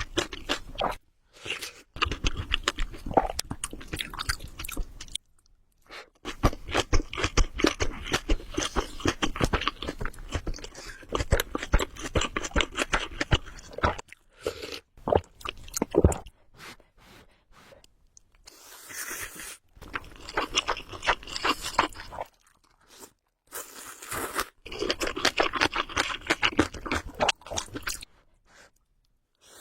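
Close-miked chewing of spicy ramen noodles: several runs of rapid, clicky mouth sounds, with short pauses in between.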